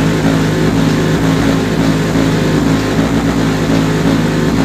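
A competition car-audio system's subwoofers playing heavy bass at about 151 dB during a timed bass-boxing run. The bass comes as a steady, pulsing drone, heard heavily distorted.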